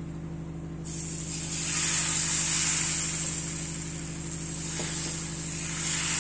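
Thin ragi dosa batter sizzling and hissing as it is poured onto a hot dosa griddle. The sizzle starts suddenly about a second in, is loudest a second or two later, eases off, and swells again near the end as more batter goes on.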